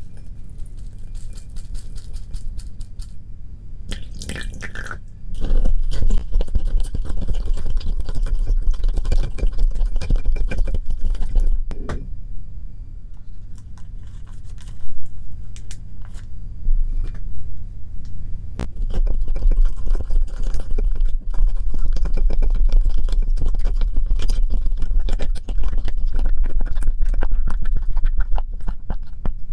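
Plastic spoon stirring a wet, gritty sugar-and-salt slime mixture in a glass bowl, with many small scrapes and clicks against the glass over a steady low hum.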